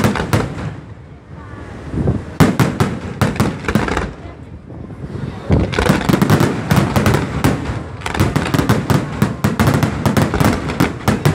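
Fireworks display: aerial shells bursting in rapid volleys of sharp bangs, with short lulls about a second in and again around four seconds, then a dense, continuous barrage from about five and a half seconds on.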